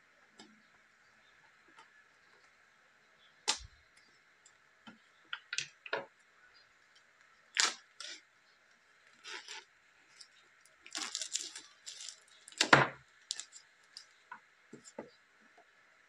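Handling and opening a cardboard gimbal box: scattered taps, clicks and rustling of the packaging, with a few sharp knocks, the loudest near the end, and a stretch of rustling shortly before it.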